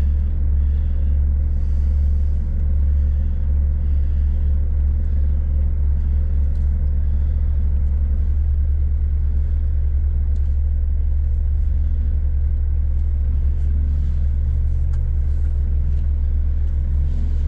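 Heavy truck diesel engine running steadily, low and even, with a scatter of faint ticks in the second half.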